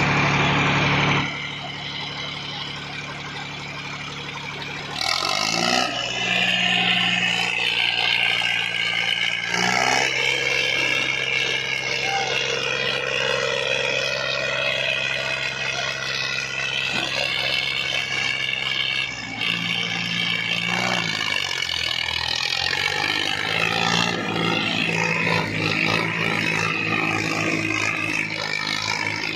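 Diesel tractor engines of a Sonalika 35 and a Massey Ferguson straining under heavy load while pulling against each other on a chain. The engine note revs up about five seconds in, then eases off and revs again several times, dipping around ten seconds and again around twenty to twenty-two seconds.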